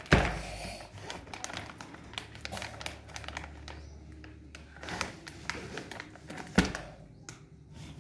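Plastic packaging of a colour-pen set crinkling and rustling as it is tugged at and fails to open because it is too tight, with a sharp knock just after the start and another about six and a half seconds in.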